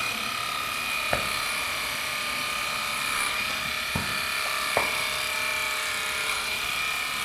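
Heiniger electric horse clipper running with a steady high-pitched hum as its blades clip a horse's coat at the shoulder, with three brief clicks along the way.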